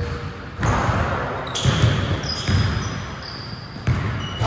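Basketball bouncing on a hardwood gym floor in an uneven run of thuds as players dribble, with sneakers squeaking on the court now and then.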